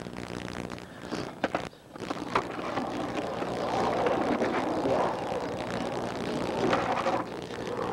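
Skateboard wheels rolling over the bare concrete of an empty swimming pool, a rumble that swells and fades as the board carves, over a steady low hum. Sharp clacks of the board about one and a half and two and a half seconds in.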